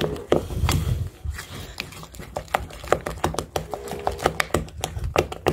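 Wooden spoon stirring a thick cake-like batter in a glass bowl, with irregular clicks and knocks of the spoon against the glass as the flour is worked in.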